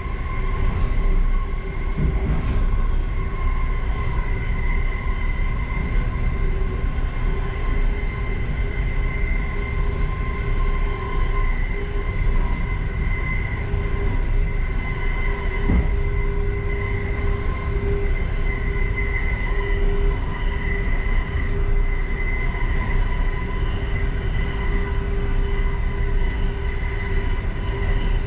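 Passenger railway car running at speed, heard from inside: a steady low rumble with a constant whining hum over it, and two soft knocks, one near the start and one about halfway through.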